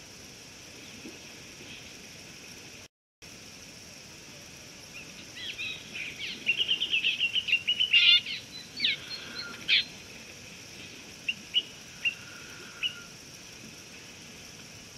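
A bird calling close to the microphone: a fast run of high chirps starting about five seconds in and lasting several seconds, followed by a few single chirps, over a steady outdoor hiss. The sound cuts out briefly near the start.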